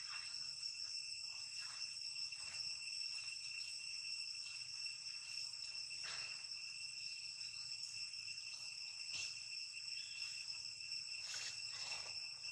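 Steady insect chorus, a continuous high-pitched buzzing drone, with a few faint ticks scattered through it.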